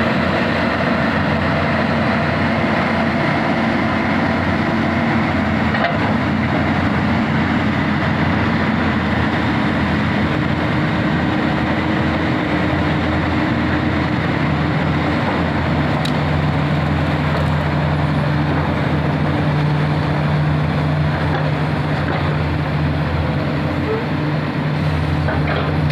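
Heavy diesel engines of Komatsu hydraulic excavators and a tipper truck running steadily during loading work. Their engine note changes pitch a few times as the machines work.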